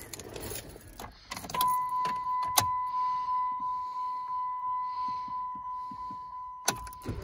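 Keys jingling and handling noise, then a vehicle's dashboard warning chime beeping steadily about twice a second, with two sharp clicks.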